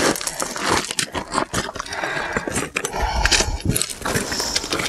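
Footsteps crunching and scraping on loose, rolling desert rock and gravel on a steep descent, many short irregular clicks and scrapes, with a low bump about three seconds in.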